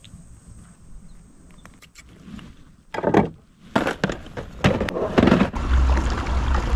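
A series of knocks and thunks from gear being handled in a fishing kayak, starting about three seconds in, then a loud low rumble for the last second or so.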